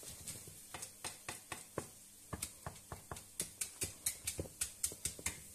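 Wooden spoon stirring short noodles in a non-stick frying pan: quick, irregular light taps and scrapes of the spoon against the pan, several a second.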